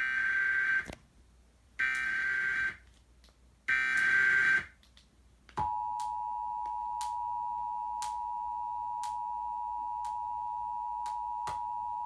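Emergency Alert System signal for a flood warning: three short bursts of warbling SAME header data tones, about a second each and two seconds apart, then, about five and a half seconds in, the steady two-tone EAS attention signal (853 and 960 Hz), with faint clicks about once a second.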